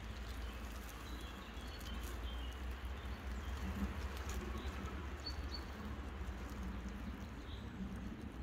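An electric RC scale crawler on Proline Hyrax tyres crawls slowly over dry leaves and sticks: a low steady hum with soft rustling and crackling. Small birds chirp a few times in the woods around it.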